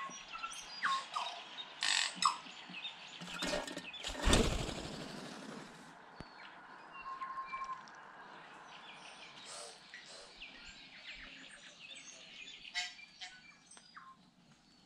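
Tui calling: a varied string of clicks, short chirps and whistled notes, with a loud rushing burst about four seconds in.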